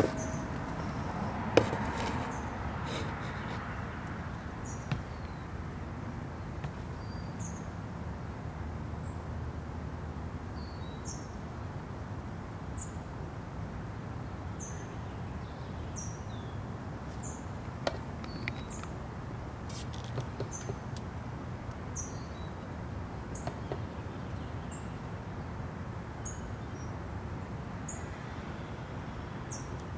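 Outdoor ambience: a steady low hum with a short, high, falling chirp repeating about once a second, and a few sharp clicks, the loudest about a second and a half in.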